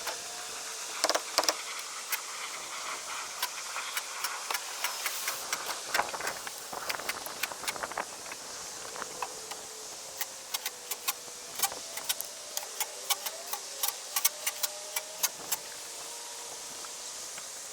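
Irregular sharp clicks and light knocks over a steady hiss, coming thicker in the second half.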